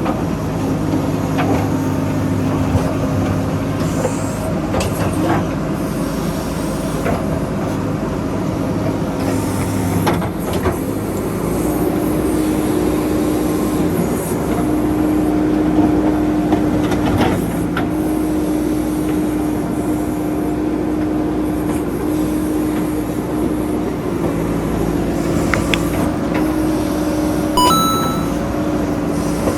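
JCB 3DX backhoe loader's diesel engine running steadily, its pitch stepping up about twelve seconds in and holding there, with scattered knocks and rattles and a brief high squeak near the end.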